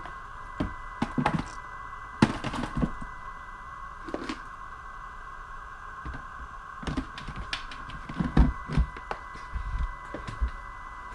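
A tackle box being opened and rummaged through: irregular knocks, clicks and thunks of the lid, latches and lures being handled, with the busiest, loudest cluster about eight seconds in. A steady faint hum runs underneath.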